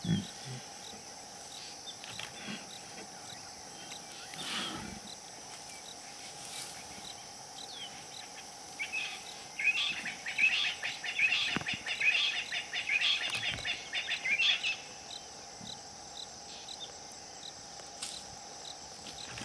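Wild birds chirping rapidly and busily for about five seconds in the middle, over a steady background hum of insects. A short low thump sounds right at the start.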